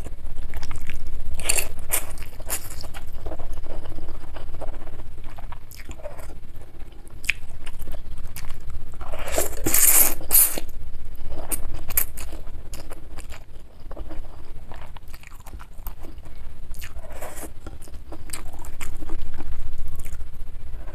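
Close-miked eating sounds from a bowl of spicy meatball soup with glass noodles: chewing throughout, with a loud slurp of noodles lasting about a second and a half about halfway through.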